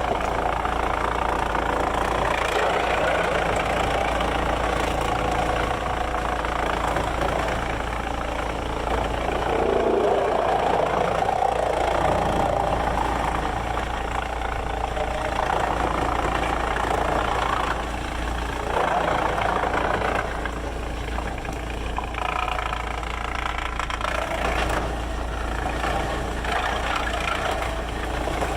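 Sawmill machinery running steadily: a continuous engine drone under shifting mechanical noise, a little louder about ten seconds in.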